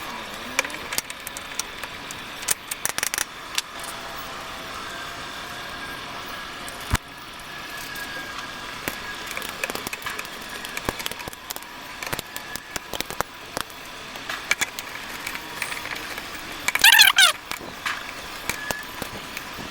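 Scattered metallic clicks, rattles and knocks of hand tools and parts as a motorcycle's electric starter motor is fitted back onto the engine and bolted in, with one sharp knock about seven seconds in.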